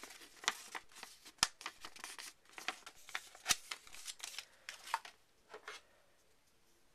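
Paper leaflet rustling and crackling as it is handled and folded, in a quick run of sharp crinkles that dies away after about five and a half seconds.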